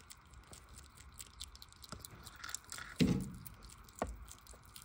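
Hedgehogs chewing superworms, a run of small faint crunching clicks. A thump about three seconds in, the loudest thing, and a lighter one about a second later.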